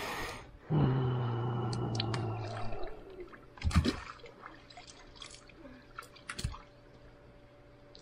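A steady low-pitched held tone for about two seconds, then a loud splash near the middle as someone steps into the pool, with smaller splashes and water drips after it and a second knock near the end.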